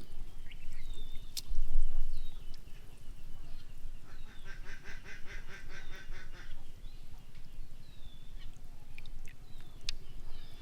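A duck quacking in a rapid run for about two seconds, starting around four seconds in, with short high bird calls repeating throughout and a few sharp clicks.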